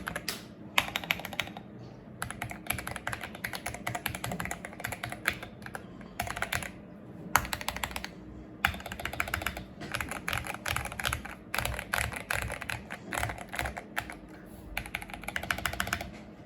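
Modded Akko 3098B mechanical keyboard, tape-modded, being typed on quickly: fast runs of keystrokes with short pauses between them.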